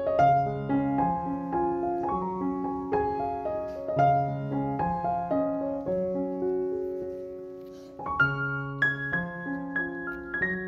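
Background piano music: a gentle, slow melody of single notes and chords. The phrase fades about eight seconds in, and a new phrase starts on higher notes.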